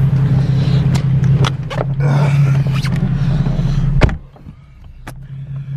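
Car engine running with a steady low drone. About four seconds in there is a sharp knock, after which the sound drops much quieter for about a second before the drone comes back.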